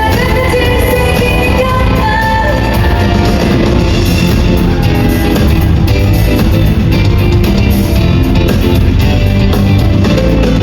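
Loud pop-rock song played through a concert hall's PA by a live band, a female vocal line over the band in the first few seconds, then band alone with electric guitar and drums.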